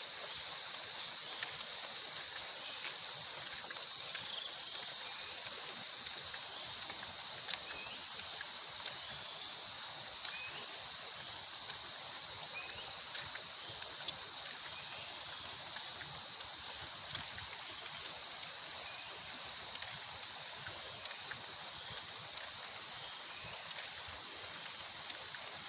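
Flash-flood water running steadily in a stream. Over it is a constant high-pitched buzzing drone, with a quick run of about ten louder pulsed chirps about three seconds in.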